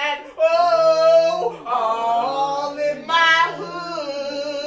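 A girl singing solo, drawing out long notes over a few phrases.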